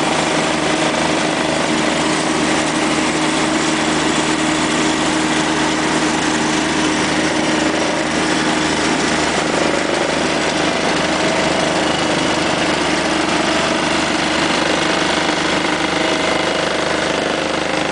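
Diesel engine of a mole-plough rig running steadily while it pulls pipe into the ground, with an even hum and no change in pace.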